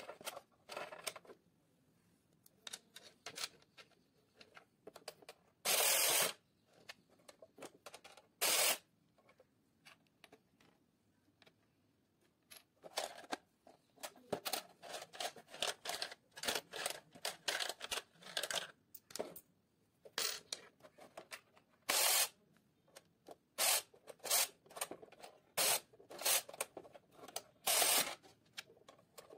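Hands handling and turning over a plastic toy coin bank: scattered clicks and taps of plastic, with a few louder scraping bursts.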